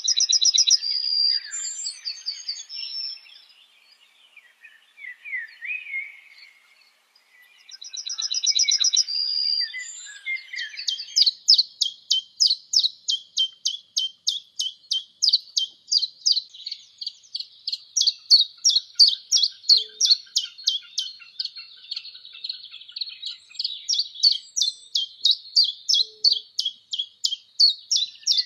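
Small songbirds singing: a few quick high trills in the first ten seconds, then a long run of rapidly repeated high notes, about three a second.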